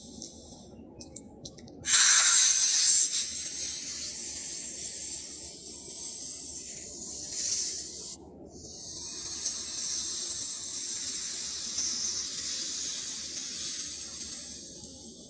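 Cobra hissing: a loud, high hiss that starts suddenly about two seconds in, breaks off for a moment about eight seconds in, then starts again and fades out near the end.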